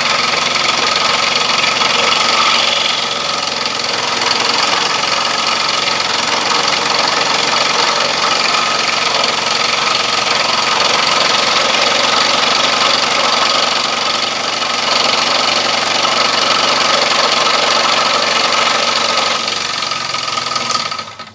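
Electric scroll saw running steadily with its blade cutting wood, then switched off and winding down just before the end.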